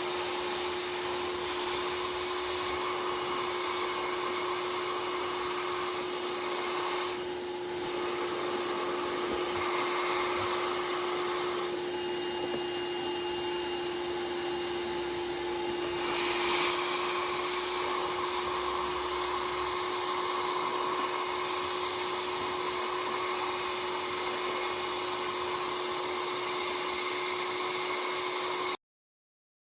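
Rug Doctor carpet cleaner with its upholstery tool running, its vacuum motor giving a steady rushing drone with a constant hum as it sucks hot water and degreaser out of a seat belt. The rushing air thins briefly twice, and the sound cuts off abruptly near the end.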